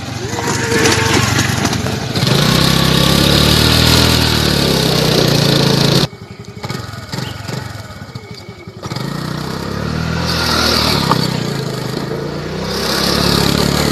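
Small scooter engine revving hard and easing off, with a hiss of the rear tyre skidding on loose dirt. The sound drops suddenly about six seconds in, then the engine revs up and down again.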